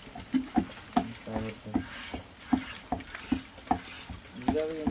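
Wooden pestle pounding in a small metal pot, a steady run of dull knocks about two to three a second.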